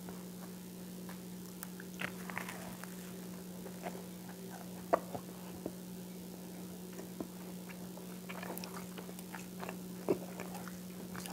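Biting and chewing crunchy toast spread with peanut butter, close on a clip-on microphone: scattered crunches and mouth clicks, the sharpest about five seconds in and again near ten seconds, over a steady low hum.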